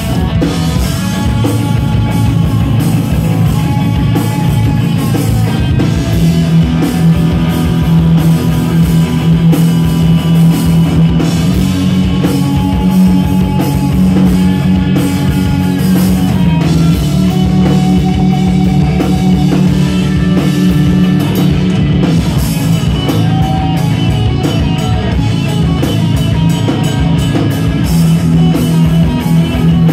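Live punk rock band playing loud, with electric guitars, bass and a drum kit going without a break.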